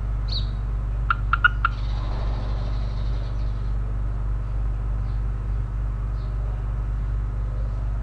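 Steady low electrical mains hum with a buzz of its multiples, with four quick clicks about a second in.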